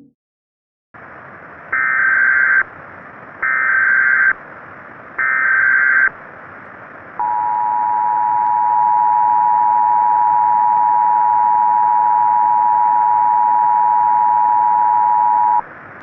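Emergency Alert System broadcast tones over a steady hiss. Three loud bursts of SAME header data tones, each about a second long and about a second apart, are followed by the two-tone EAS attention signal, held for about eight seconds before cutting off.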